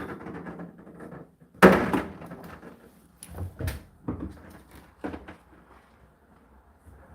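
Handling knocks: one loud bang about a second and a half in, then a few softer knocks and clatters.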